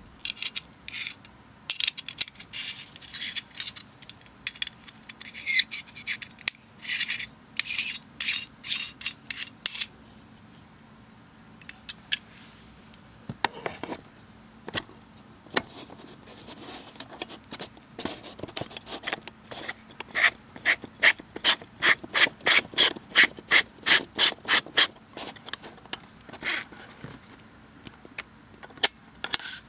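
Close handling noise of the camera and the screw-on fisheye conversion lens being threaded onto it: short scratchy rubbing strokes, irregular at first, then a regular run of about three strokes a second in the second half.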